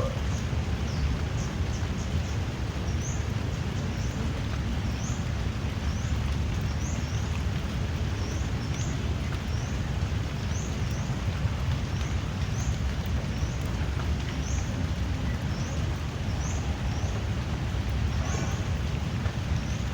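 Steady drizzling rain under a constant low rumble, with a short high call repeating about once a second in the background.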